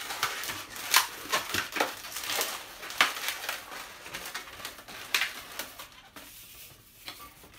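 Latex twisting balloons squeaking and rubbing against each other as the end of one balloon is wrapped and twisted onto the neck of another. Sharp squeaks come about 1, 3 and 5 seconds in, and the sound quietens near the end.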